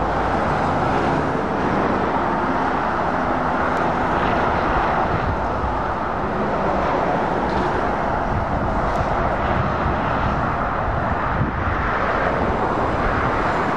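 Steady traffic noise from heavy lorries and cars passing on a dual carriageway: tyre noise on the asphalt with the low rumble of diesel engines underneath.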